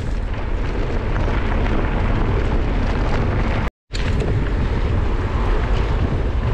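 Wind buffeting the microphone of a camera on a moving mountain bike, a loud low rumble mixed with the tyres rolling over dirt and gravel. The sound drops out completely for a moment a little under four seconds in, then the same rumble resumes.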